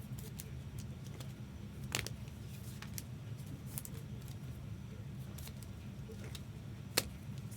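Light clicks and handling sounds of trading cards being slid into rigid plastic top loaders, with two sharper clicks about two seconds in and near the end, over a steady low hum.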